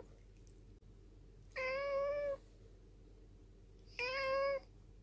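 Domestic cat meowing twice in a cute voice, each meow short and clear, the second about two seconds after the first: a hungry cat asking for food.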